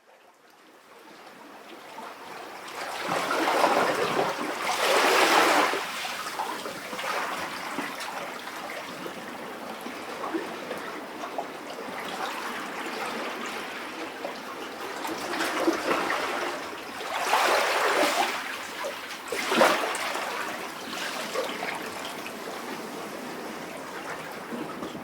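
Small sea waves lapping and sloshing inside a rock cavity. The sound fades in at the start, and the water surges loudest a few seconds in and again in a cluster of three surges about two-thirds of the way through. Between the surges the water keeps up a steady, lower wash.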